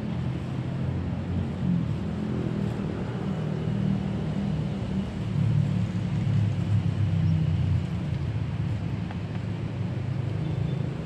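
Steady low rumble of outdoor background noise, swelling and easing slightly, with no voices.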